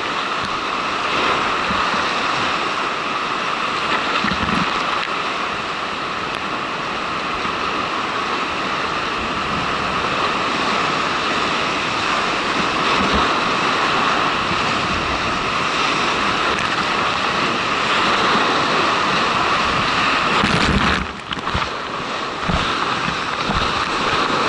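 Loud rushing whitewater of a creek in flood: big brown breaking waves and spray crashing around a kayak in a steady roar. Near the end the sound goes briefly muffled and drops, then comes back.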